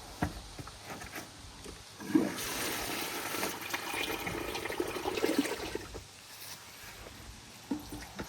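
Water running from about two seconds in for around four seconds as freshly dug potatoes are washed, with a few light knocks before it.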